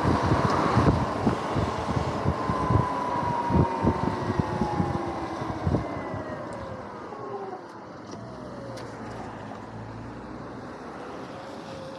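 Wind buffeting the helmet-mounted microphone over the whine of a Sur-Ron X electric dirt bike's motor, which glides down in pitch as the bike slows. Past the middle it settles to a quieter steady hiss and low hum, with a short whine again near the end.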